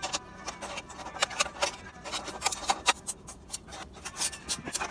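Irregular clicks, taps and scrapes of hand tools and parts being handled while the exhaust fan's motor is being changed, with several sharper knocks through the middle.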